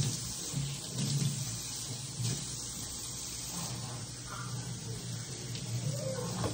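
Kitchen faucet running steadily into the sink, the stream falling on a baby's hair as conditioner is rinsed out.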